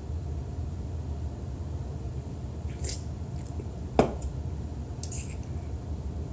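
A person sipping and swallowing ginger ale, with small wet mouth and drinking sounds. One short, sharp click about four seconds in is the loudest sound, heard over a steady low hum.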